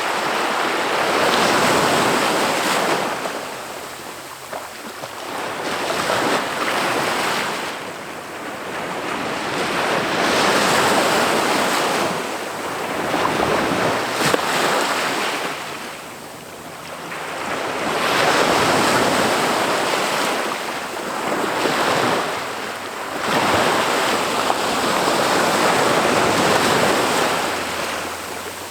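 Ocean waves breaking on a beach: the surf noise swells and fades every few seconds as each wave comes in and washes back.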